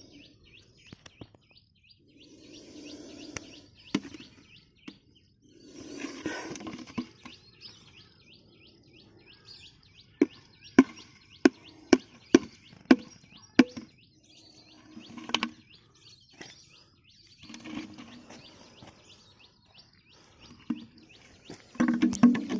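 Birds chirping with rapid, repeated high notes, interrupted by a run of about seven sharp clicks or taps midway and several louder noisy bursts, the loudest near the end.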